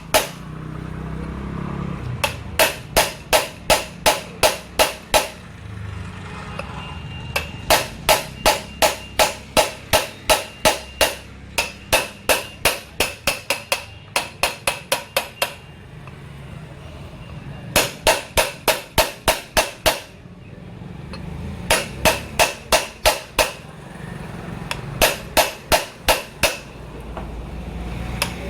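Hammer blows on metal in quick runs of about three to four strikes a second, the runs broken by brief pauses; the strikes ring.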